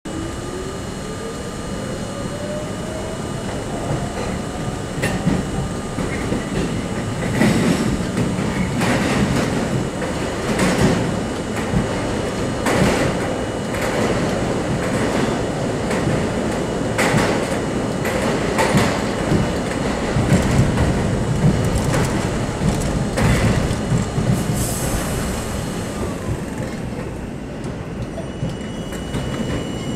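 New York City subway C train heard from inside the front car as it pulls out of a station and runs through the tunnel. A rising motor whine over the first few seconds gives way to steady wheel-on-rail rumble, with irregular sharp clacks over rail joints and a brief hiss near the end.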